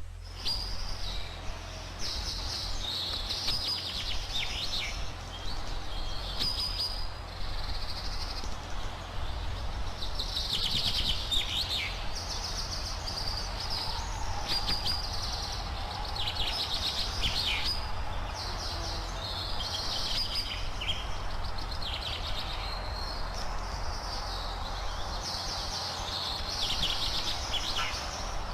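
Birds chirping and twittering in quick repeated bursts throughout, over a steady background hiss and low hum.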